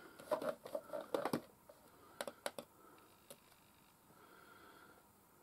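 Computer mouse buttons clicking to open windows: a quick flurry of clicks in the first second and a half, then a few single clicks.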